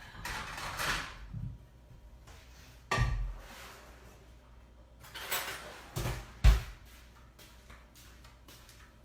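Kitchen clatter as a plate is fetched and handled: a rustle at the start, a knock about three seconds in, then two more knocks around six seconds, the second one the loudest, like dishes set down on a counter.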